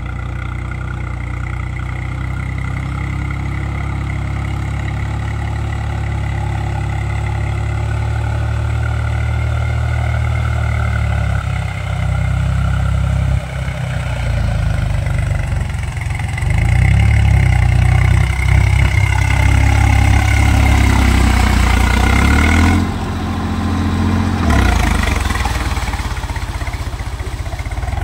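Swaraj 735 FE tractor's three-cylinder diesel engine running steadily under load while puddling a flooded paddy field on cage wheels. It grows louder past the middle as the tractor draws close, then eases somewhat near the end.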